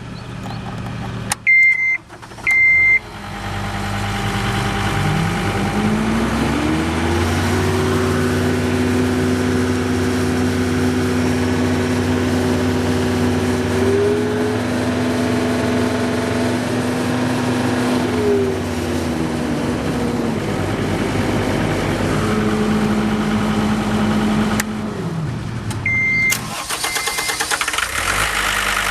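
John Deere 329D skid steer's diesel engine running: it idles, is throttled up to high revs about six seconds in, holds there, then drops back to idle around twenty seconds in. Short high electronic beeps sound twice near the start and twice near the end.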